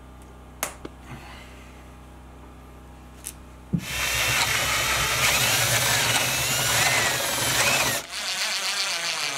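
After a few quiet seconds with a low hum and a couple of light clicks, a power sander starts with a thump about four seconds in and runs over the birch tabletop. About eight seconds in the sound changes to a power drill boring into a Douglas fir board.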